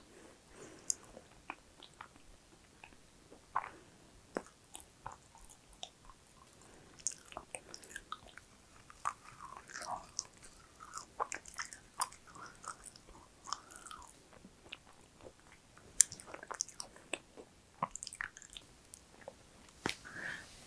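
A macaron being bitten and chewed close to a clip-on microphone: scattered soft mouth clicks and smacks, with a little crunch of the shell.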